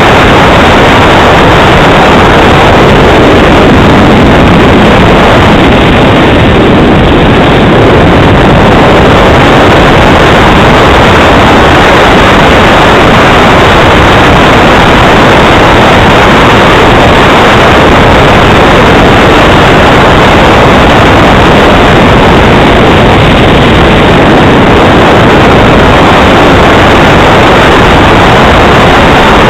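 Radio-controlled model jet's engine running with a steady, loud rushing noise that overloads the recording, swelling slightly now and then.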